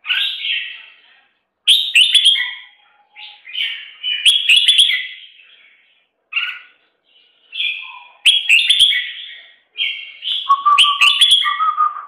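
Bulbul nestlings begging in the nest: bursts of shrill, rapid chirps every second or two, with a short lower call just before the end.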